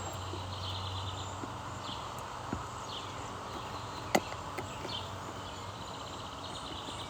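Small birds chirping, with scattered short falling chirps and brief trills over a steady background hiss. There is one sharp tap or knock a little past four seconds in.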